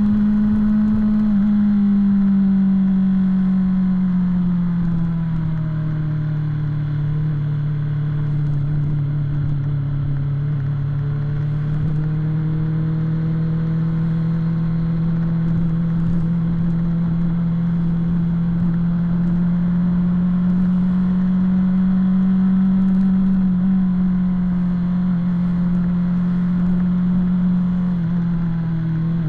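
BMW S1000-series motorcycle's inline-four engine running at a steady cruise in traffic. Its pitch falls as the throttle eases a few seconds in, climbs slowly back up, then drops again near the end.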